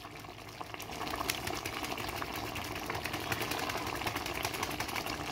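Capsicum chicken curry simmering in a pot, bubbling with a fast, steady crackle of small pops.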